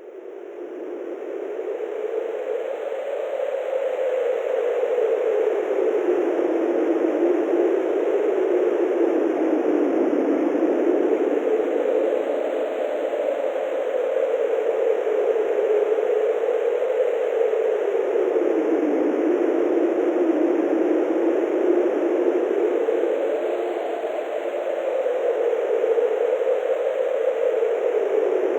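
Wind sound effect: a steady rushing of wind whose pitch slowly rises and falls, fading in over the first few seconds.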